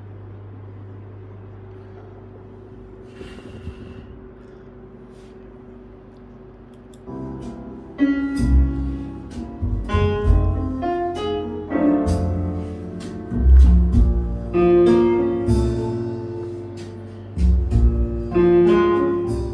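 A low, steady hum for about seven seconds, then a song's instrumental intro, with piano- and guitar-like notes over a strong bass, played through a home-built stereo tube amplifier with 6L6G output tubes.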